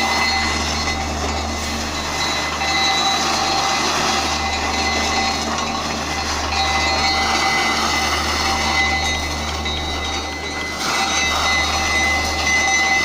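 Ukrainian Railways train running: a continuous rumble and rushing noise with steady high-pitched whines over it.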